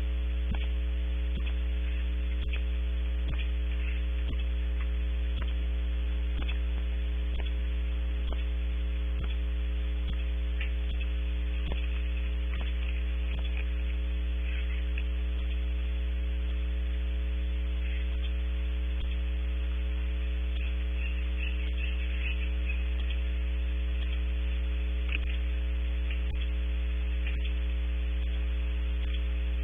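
Loud, steady electrical mains hum with a stack of steady tones above it and scattered faint clicks, carried on a wildlife webcam's audio feed: an audio fault in the camera's sound.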